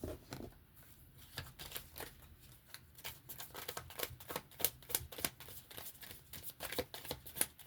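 A deck of oracle cards being shuffled by hand: a rapid run of light card clicks and flicks, getting busier about a second in.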